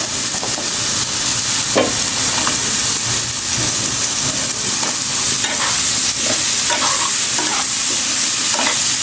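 Cut potato, eggplant and flat beans sizzling in hot oil and spice paste in a pan, with a steady hiss and a few stirring scrapes.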